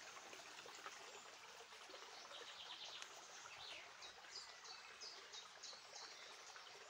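Faint outdoor ambience: a small songbird singing in a few short runs of quick, high chirps over a steady soft hiss.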